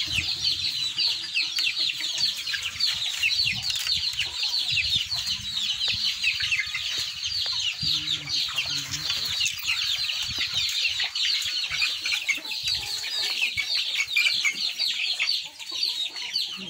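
Young chickens and chicks peeping continuously, many high, short, downward-sliding cheeps overlapping, with a few low clucks about halfway through.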